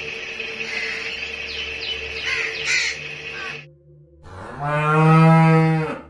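A few short bird calls over a steady hum. Then, after a brief pause, a cow moos once, a long loud low call lasting about a second and a half.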